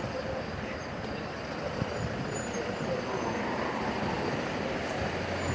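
Steady city street traffic noise from vehicles on the road.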